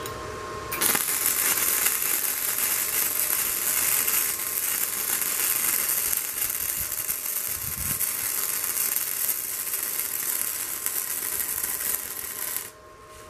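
MIG welding arc from a Daiden MIGI130 welder on a rusty steel bar: the arc strikes about a second in, runs steadily for about twelve seconds, and cuts off shortly before the end.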